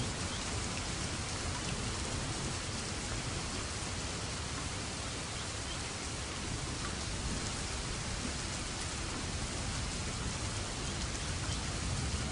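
Steady rain falling: an even hiss with scattered drops ticking.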